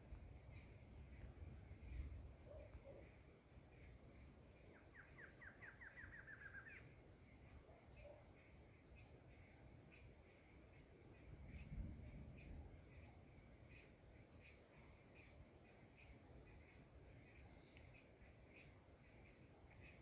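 Faint forest ambience: insects keep up a high, steady trill that breaks off and resumes about once a second. About five seconds in, a bird gives a short, quick trill of notes, and there are two soft low thumps.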